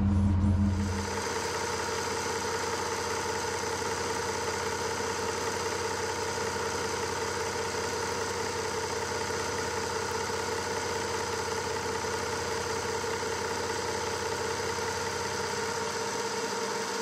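Milling machine cutter taking a cut in an aluminium block, starting about a second in: a steady whine with several fixed tones that holds even through the cut.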